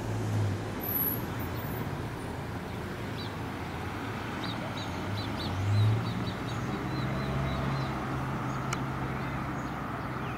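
Steady rushing noise, like wind on the microphone, under a low steady hum, with a small bird giving a quick run of short high chirps about midway.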